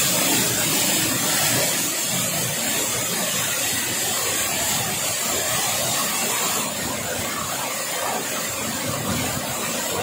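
Waterfall pouring into its plunge pool, heard from behind the falling curtain of water: a steady rushing noise.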